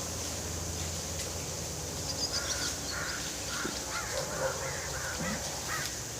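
A run of short bird calls, about a dozen in quick succession through the middle seconds, over a steady low hum.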